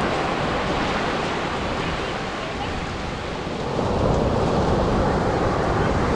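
Atlantic surf breaking and washing up the beach, with wind buffeting the microphone; a wave surges in and grows louder about four seconds in.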